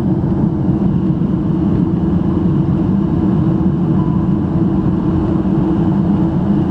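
Steady low drone of a Beechcraft King Air 350's twin turboprop engines and propellers, heard from inside the cabin as the aircraft rolls along the runway after landing.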